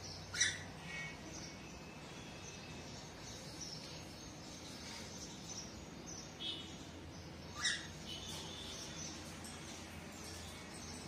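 Cockatiels calling: two loud, short, sharp calls, about half a second in and again near eight seconds, with softer chirps between, over a low steady hum.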